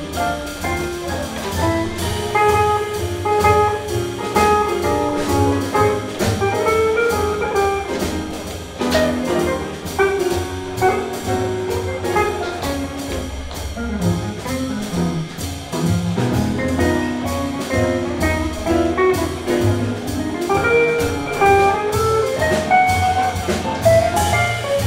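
Live small-band swing jazz: saxophone and trumpet, piano, guitar, upright double bass and drum kit playing a swinging tune, with a steady drum beat under the bass line.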